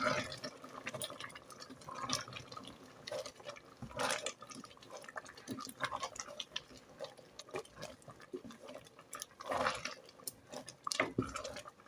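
A spoon working in a soupy stew: scattered light clinks and scrapes against the pot, with wet sloshing and dripping, busiest about four seconds in and again near the end.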